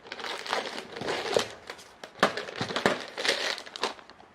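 Plastic packaging crinkling and rustling in irregular bursts as it is handled and pulled open.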